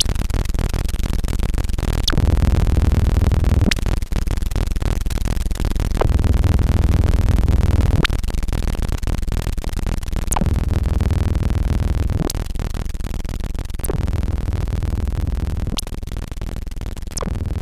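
Experimental electronic noise music: a dense, heavy low rumble under a hiss, cut through every couple of seconds by brief high chirps, and dropping somewhat in level near the end.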